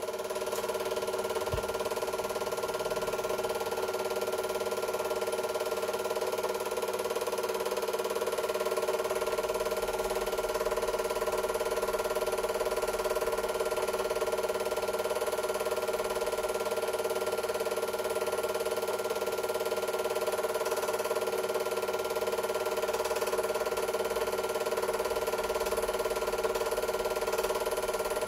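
Super 8 film projector running: a steady mechanical whir from the film-transport mechanism, unchanging throughout.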